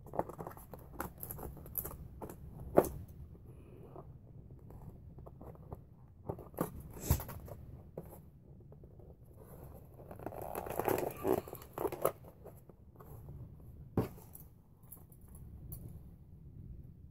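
Scissors cutting through thick cardboard packaging, in scattered crunching snips with a few sharp snaps, and a longer stretch of rustling and tearing about ten seconds in.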